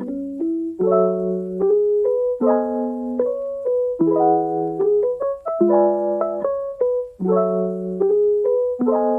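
Background piano music: a calm melody over repeated chords, a new chord struck about every second and a half.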